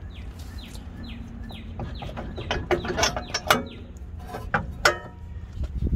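Metal clinks and knocks as the Honda Accord's front brake caliper and steering knuckle are handled, sharpest about three and a half and five seconds in. A bird calls through the first half in a quick run of short falling notes.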